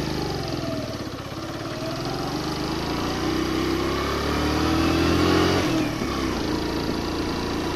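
Suzuki GN125's single-cylinder four-stroke engine pulling uphill under load with a passenger aboard. The revs climb for several seconds, drop suddenly about six seconds in, then hold steady.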